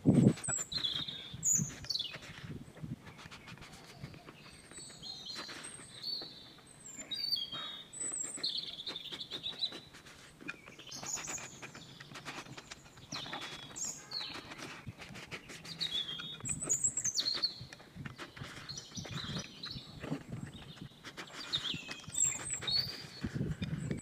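Fried rice shovelled quickly into the mouth with chopsticks: chopsticks clicking and scraping on the plate, with chewing. Small birds chirp throughout in short repeated calls.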